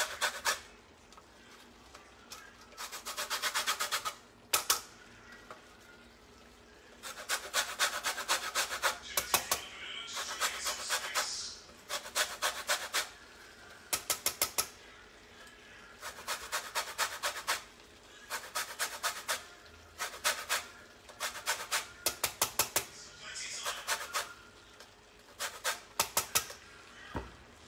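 Lemon zest being grated on a metal box grater: repeated bursts of quick rasping strokes, each lasting a second or two, with short pauses between.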